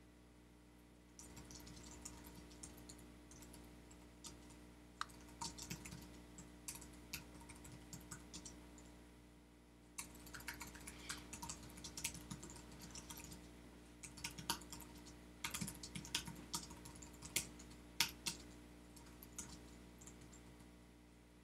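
Typing on a computer keyboard: quick runs of key clicks as prose is written, starting about a second in and pausing briefly about halfway, over a faint steady hum.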